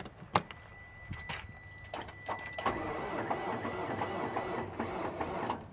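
A Freightliner semi truck's starter being tried off a jump pack at 24 volts. There is a sharp click, then from about two and a half seconds in about three seconds of rapid, rough mechanical chatter without the engine catching. The weak jump leaves it at the edge of cranking, which the crew puts down to the clamps not making a good connection.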